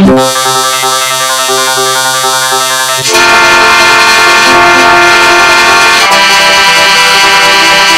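Loud, heavily distorted and pitch-warped jingle audio from a meme 'effects' edit, many altered copies sounding at once as a dense, buzzing chord. It changes character abruptly about three seconds in and again about six seconds in.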